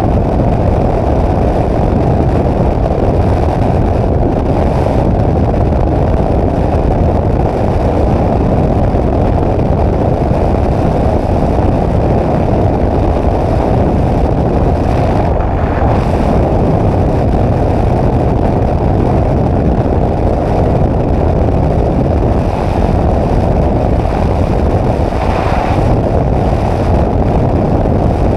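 Flexwing microlight trike in flight: a loud, steady drone of its engine mixed with rushing air over the microphone.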